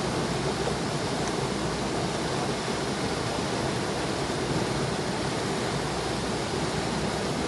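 Steady rush of a rocky river's rapids and small waterfall, an even unbroken wash of water noise.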